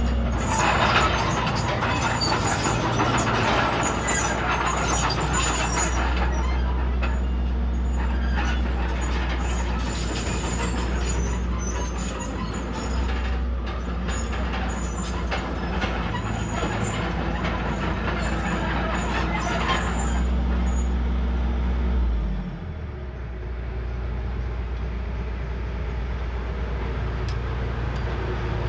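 Komatsu D31PX crawler bulldozer's diesel engine running steadily under work, with scattered clicks and rattles over it; the engine note drops and the sound grows quieter about 22 seconds in.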